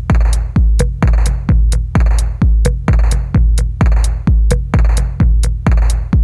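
Electronic background music with a heavy kick drum on a steady beat, about two beats a second, over a sustained bass.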